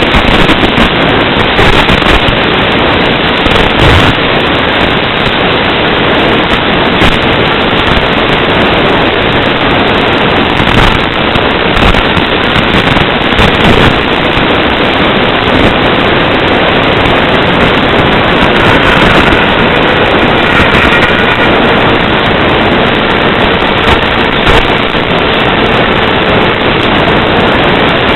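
Loud, steady crackling static hiss from an analog FPV video receiver's audio channel, with brief crackles scattered throughout.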